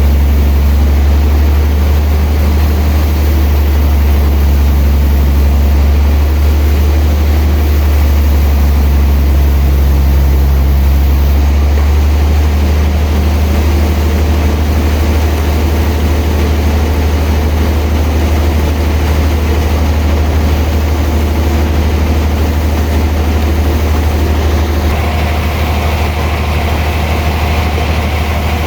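Sawmill machinery running steadily with a deep, even hum. The sound shifts slightly about halfway through and takes on a brighter edge near the end.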